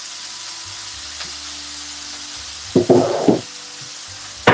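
Broccoli and greens sizzling in olive oil in a frying pan, a steady hiss. About three seconds in there is a short clatter of knocks, and a single sharp knock comes near the end.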